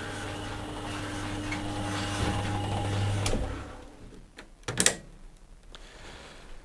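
White Knight C3A tumble dryer's motor and fan running with a steady hum, now turning on its replacement motor capacitor, then switched off about three seconds in so the hum stops. A few sharp clicks follow, the loudest near the end.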